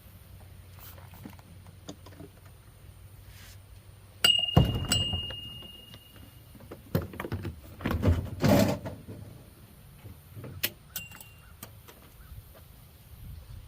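Metal parts clanking and clattering as a refrigerator is dismantled for scrap: a loud metal strike about four seconds in that rings briefly, a second ringing strike just after, a burst of clattering knocks a few seconds later and one more ringing clink near the end.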